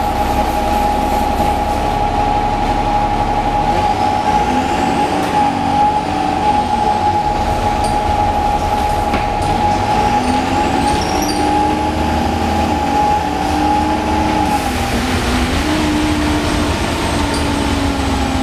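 Interior running sound of an Optare Solo M950 bus with a Euro 4 Cummins ISBe diesel engine and Allison 2100 automatic gearbox on the move. The engine note climbs and drops in steps as the gearbox changes gear, over a steady high whine.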